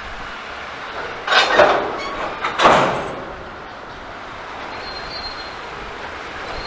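Freight cars of a passing train rolling along the track, with two loud metallic bursts a little over a second apart. A faint high wheel squeal comes in near the end.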